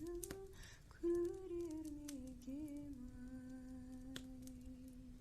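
A voice softly humming a slow folk lullaby, holding and stepping between long notes, over the occasional pop and crackle of a wood fire in a fireplace.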